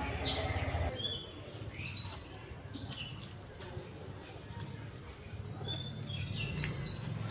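Small birds chirping and calling, with short repeated chirps and quick falling whistles throughout, over a steady high insect-like drone.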